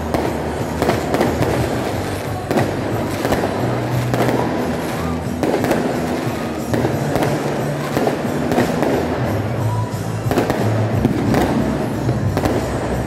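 Aerial fireworks bursting, repeated bangs at irregular intervals, over loud music with steady low bass notes.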